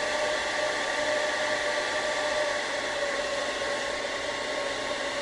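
Electric hair dryer running steadily: an even rush of blown air with a steady motor whine.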